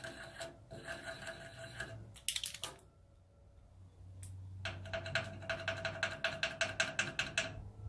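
A paint marker's tip tapped rapidly and repeatedly against bare steel body panel to pump its valve and get the paint flowing. The tapping comes in two runs with a short pause between, the second about six taps a second, and a faint ringing tone under each run.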